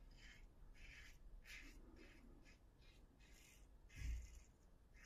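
Stainless steel Syntesi double-edge safety razor with a Feather blade scraping through lathered stubble: a run of short, faint rasps, about two a second. A dull low thump about four seconds in.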